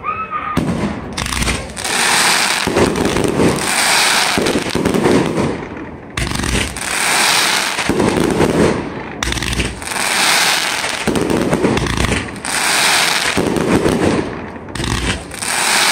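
Fireworks going off at close range: aerial shells launch and burst in a rapid sequence, with dense crackling from the shells' stars. Low thumps come every few seconds, each followed by a few seconds of crackle, so the sound never stops.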